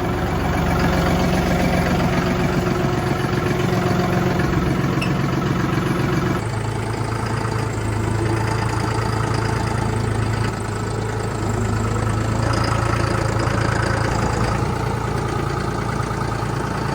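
Diesel farm tractor engine running steadily at a low, even speed, its tone changing abruptly about six seconds in.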